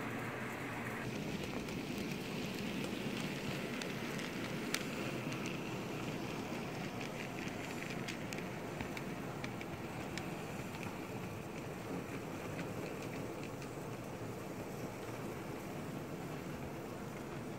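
Model train running on a small layout: a steady whirring hiss, with one sharp click about five seconds in and a run of light clicks from the wheels over the track a few seconds later.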